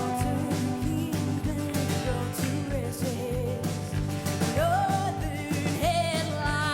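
A rock band playing live: drums keeping a steady beat under guitars. A singer's voice comes in about two-thirds of the way through with held, wavering notes.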